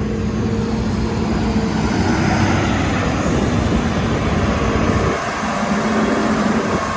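Hitachi Zaxis excavator's diesel engine running loud and steady. The deep rumble drops away about five seconds in.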